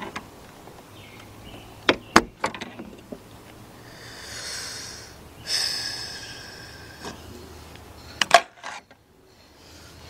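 Hand work on parts during repair: a few sharp clicks and knocks about two seconds in and again near the end, with two brief hissing sounds in between.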